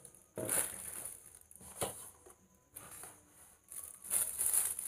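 Clear plastic bag crinkling in short, irregular bursts as the binoculars wrapped in it are handled, louder near the end.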